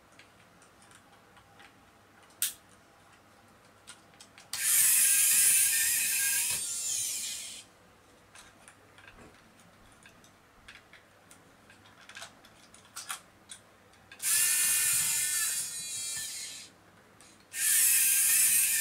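Small geared electric motor in a Citroën DS 21 scale model whirring, powered up three times for about two to three seconds each, winding down as each run stops. A sharp click comes about two seconds in.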